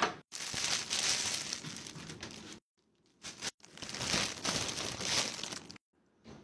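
Close-up crinkling and rustling of something being handled, like crinkly packaging, in two stretches of about two seconds each that stop abruptly.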